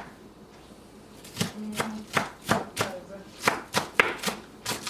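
Kitchen knife chopping vegetables on a cutting board: after about a second of quiet, a run of sharp knocks, about three a second.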